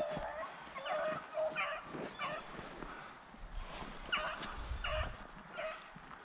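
Pack of beagles baying in short, repeated barks, the hound voice given while running a rabbit's scent track, with a pause of about a second and a half partway through.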